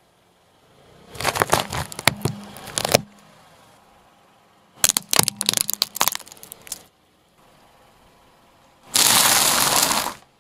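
A car tyre rolling over and crushing objects on asphalt: three separate bouts of cracking and crunching, the first two made of many sharp snaps, the last a dense, even crunch of dry pasta rings being ground under the tread.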